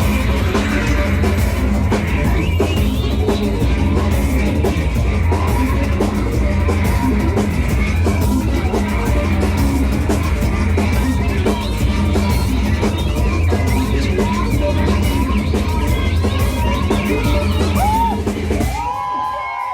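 Live rock band at full volume: drum kit, guitars and bass with some vocals, heard through a venue PA. The band stops near the end and the crowd starts cheering and whistling.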